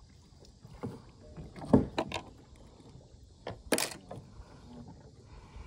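Handling noise in a plastic kayak as a largemouth bass is brought aboard: a few scattered knocks and clicks against the hull and gear. The loudest knock comes nearly two seconds in and a sharp click near four seconds.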